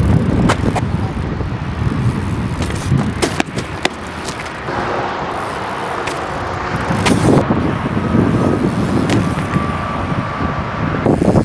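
BMX bikes rolling over rough pavement and gravel, a steady low rumble with scattered sharp clicks and knocks from the bikes.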